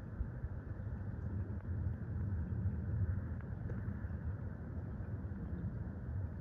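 Distant aircraft engines: a low, steady rumble that swells slightly a few seconds in.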